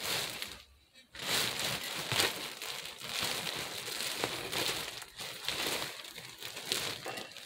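Quilted silver cover of a portable steam sauna crinkling and rustling as it is unfolded and handled, starting about a second in and going on without a break.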